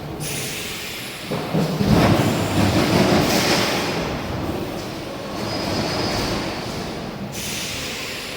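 Industrial machinery of an EPS 3D wire-mesh panel production line running, a loud steady mechanical noise that changes abruptly about a second in and again near the end.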